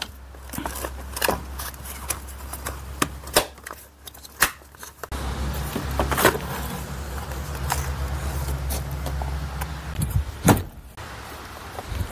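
Clicks, knocks and rattles of a plastic seat side trim panel and its power seat switch being handled and snapped into place. A low steady hum runs underneath and gets louder about five seconds in, then fades near the end.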